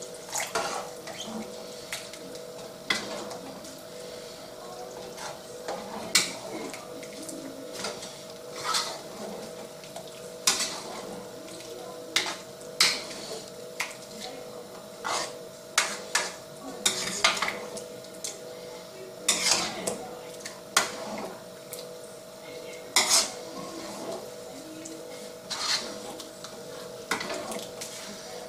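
Metal ladle stirring thick tomato meat sauce in a wide metal pan, scraping and clinking against the pan's sides and bottom at irregular moments every second or two. A steady hum runs underneath.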